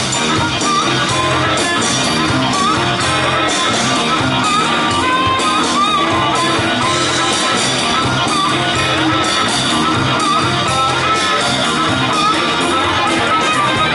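Live blues band playing an instrumental passage: a harmonica solo with bending notes over electric guitar, electric bass and drums.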